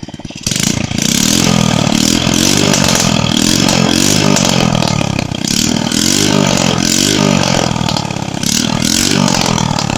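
Honda Supra X 100 cc single-cylinder motorcycle engine running with no exhaust pipe or muffler, revved hard from idle: it jumps to high revs about half a second in, then the revs rise and fall several times before easing back near the end. Very loud, because the open exhaust port has no silencing.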